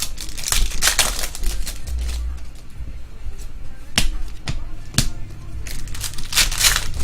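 Trading cards being handled by hand: cards sliding against each other in short rustling strokes, with two sharp taps about a second apart midway.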